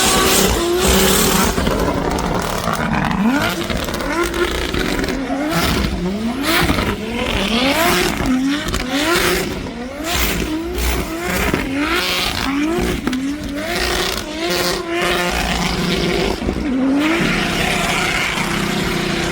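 Race car engine revved over and over in short rising bursts, about one a second, over constant noisy background; the repeated revs start a few seconds in and stop near the end.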